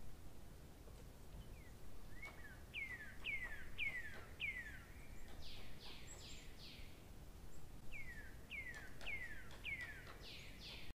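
A small bird calling: runs of about four short, falling chirps, heard twice, mixed with some higher, shorter notes, over a faint low background hum.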